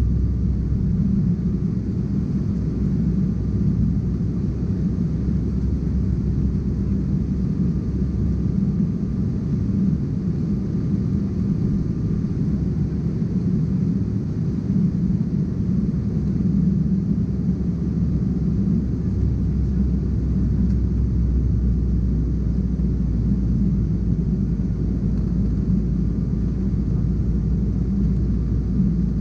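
Steady low cabin rumble of an Embraer ERJ-190 airliner climbing out, its GE CF34-10E turbofan engines and airflow heard from inside the cabin at a window seat by the wing.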